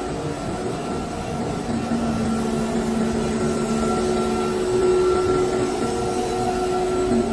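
PE pipe extrusion line running: a steady machine hum from its electric motors and water and vacuum pumps, with a few held tones over a wash of noise.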